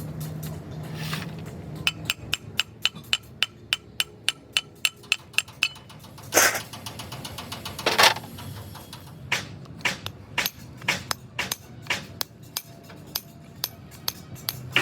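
Hammer tapping on metal in quick, even strikes, about four to five a second. Two louder, longer scraping bursts come in the middle, followed by more irregular knocks.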